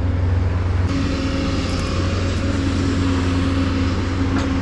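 Dump truck's diesel engine running steadily, a continuous low drone with a steady hum above it that strengthens about a second in.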